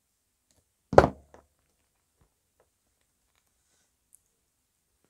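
Hand-tool handling at a workbench: one sharp knock about a second in, followed by a lighter click, as pliers are worked on a DIN plug's metal cable clamp.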